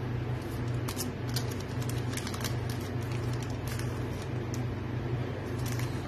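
Foil trading-card pack wrapper crinkling and tearing as the pack is opened and the cards are slid out: a run of short crackles over a steady low hum.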